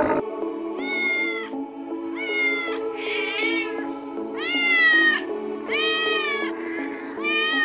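Domestic cat meowing about six times, each meow under a second long, over steady background music.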